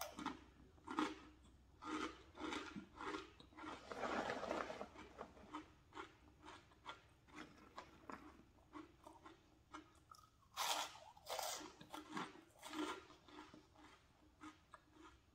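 Crunchy snack chips and puffs being bitten and chewed: a run of short crunches, with two louder crunches about ten and a half seconds in.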